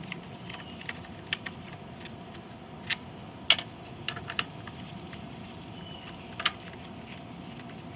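Scattered light clicks and taps of a socket wrench on the bolts holding the air cleaner backing to a Briggs & Stratton Quantum mower engine as they are loosened and removed, the loudest about three and a half seconds in.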